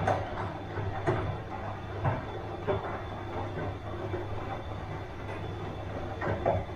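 Bosch washing machine running: a steady low hum with a few short knocks from the drum, several in the first three seconds and one more near the end.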